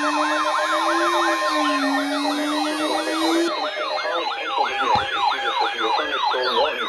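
Electronic yelp sirens sounding as an alert signal: several overlapping sweeps up and down in pitch, about four a second. A steady high tone sounds under them and stops about two seconds in.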